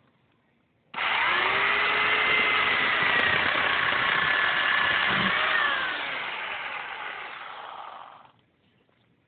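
WEN 4017 corded electric chainsaw switching on abruptly about a second in and cutting through a branch, its motor pitch sagging and recovering under load. A dull thud comes about five seconds in as the cut piece falls, then the saw runs quieter and stops sharply near the end.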